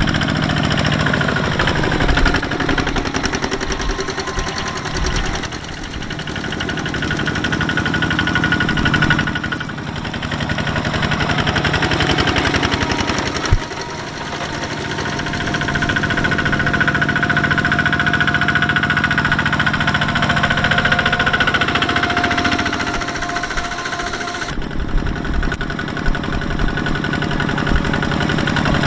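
Single-cylinder diesel engines of two-wheel walking tractors chugging steadily as they pull loaded rice trailers through mud. The sound changes abruptly several times as different tractors pass close by.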